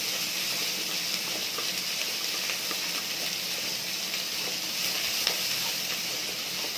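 Chopped onions with green chillies and spices sizzling in hot oil in a pan as they sauté, a steady frying hiss with a small click about five seconds in.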